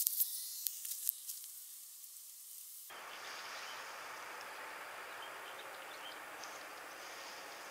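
A few light clicks and a faint swish from a lure cast with a spinning rod. About three seconds in, this gives way to a faint, steady outdoor hiss.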